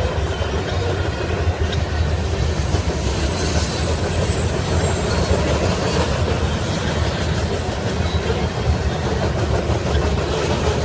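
Covered hopper cars of a grain train rolling past close by: a steady rumble and clatter of steel wheels on the rails, with faint high squeal now and then.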